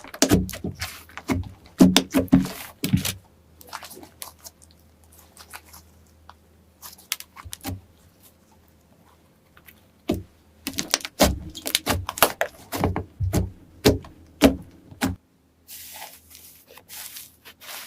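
Slime being worked, making bursts of sharp, sticky clicks and pops with quiet pauses between, and a softer hiss near the end.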